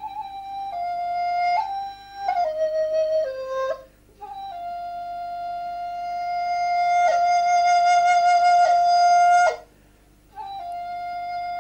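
Background music: a solo flute playing a slow melody, with a long held, slightly wavering note in the middle and short pauses between phrases.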